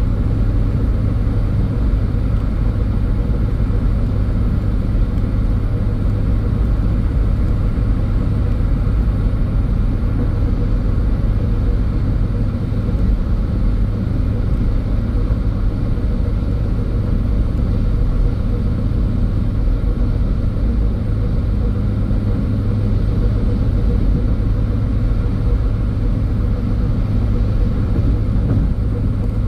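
Car being driven at a steady pace: a constant low rumble of the vehicle on the road, with no change in speed or pitch.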